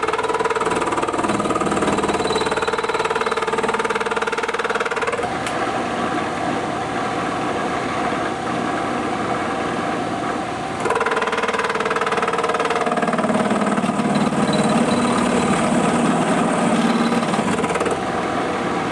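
Milling machine running with its cutter working a piece of cast iron: a steady motor whine over a rough cutting noise. The tone changes a few times, about five seconds in, again near eleven seconds and once more a little later.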